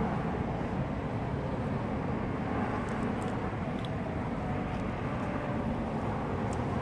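Steady outdoor rumble of road traffic, with no single event standing out.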